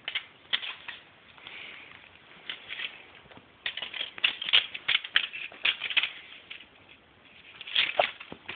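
Kittens batting and chasing crumpled aluminum foil balls: a rapid, irregular clatter of light crinkly taps and scrapes, busiest in the middle and again near the end.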